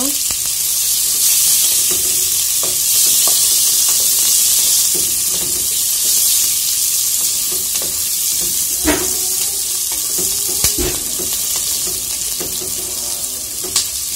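Sliced onion and green chile sizzling as they fry in a hot pot, stirred with a wooden spatula that clicks against the pot a few times.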